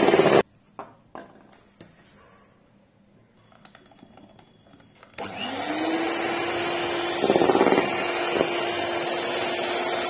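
Electric hand mixer beating cake batter in a steel bowl. It cuts off about half a second in, a few light knocks follow, then just after five seconds the motor starts again, its whine rising and settling to a steady pitch.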